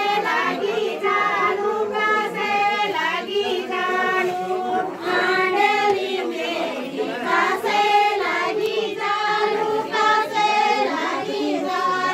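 A group of women singing a Garhwali chaufula folk song together in repeated sung phrases, without clear drum accompaniment.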